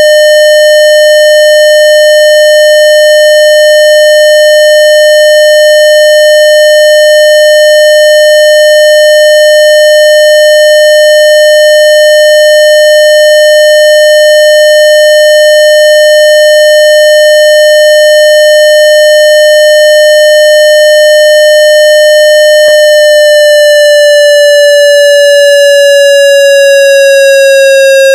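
Loud synthesized warning-siren tone made in audio software. It holds one steady pitch for about twenty seconds. Then a click comes, and the pitch starts slowly winding down with a wavering pulse, like a siren spinning down.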